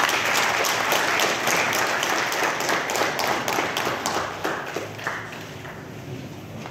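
Audience applauding, a dense clatter of many hands that is loud for the first few seconds and then thins out and dies away over the last two seconds.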